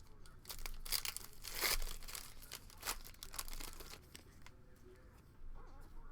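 A trading-card pack wrapper being torn open and crinkled by hand, with a run of crackling rips loudest about a second and a half in and a sharp crack near three seconds, then quieter rustling as the cards are handled.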